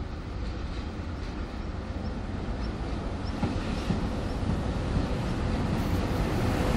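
ET42 electric locomotives hauling a freight train on approach, a steady low rumble of motors and wheels on rail growing louder as the train nears.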